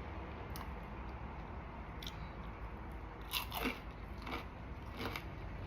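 A person chewing crunchy fried food close to the microphone, with scattered crisp crunches every second or so and a small cluster of them in the middle.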